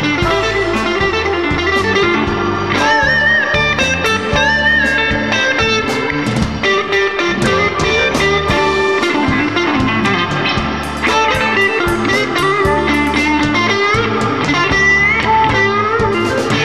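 Electric Chicago blues band playing an instrumental passage: a lead electric guitar bends notes over a walking bass line and a steady drum beat with cymbal hits.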